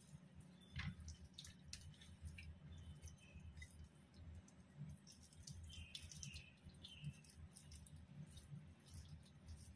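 Faint wet squishing and irregular soft clicks of hands rubbing spice mix into the skin of a raw whole chicken.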